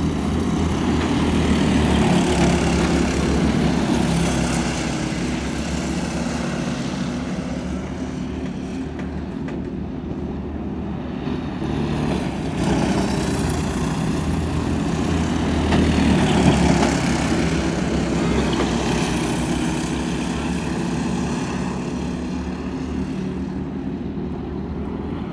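Several dirt-track racing karts' small engines running at speed together in a steady drone. The sound swells and fades as the karts come around the oval, loudest about two seconds in and again past the middle.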